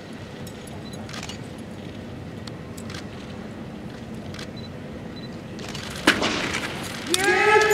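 Weighted chain of a kusarigama being whirled, with faint light clinks. About six seconds in comes a single sharp, loud crack, and near the end a loud kiai shout with a slightly falling pitch.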